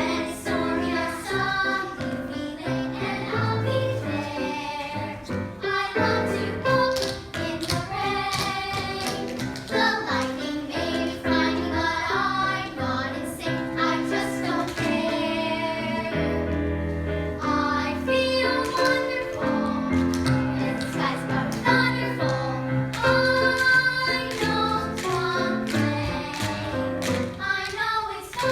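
A song with children singing over a musical accompaniment.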